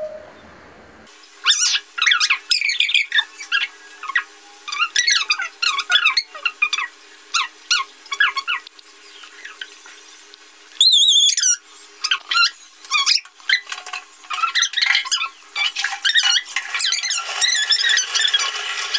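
Wet kitten mewing over and over in short, high, squeaky cries while being lathered with soap, with one longer, louder cry a little past the middle. A steady low hum runs beneath.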